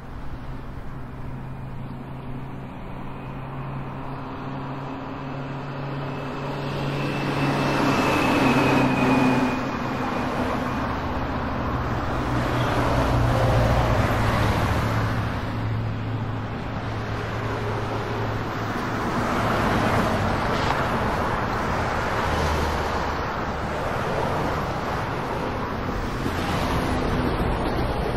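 Road traffic: a steady low engine hum with several vehicles passing one after another, each swelling in tyre and engine noise and fading again.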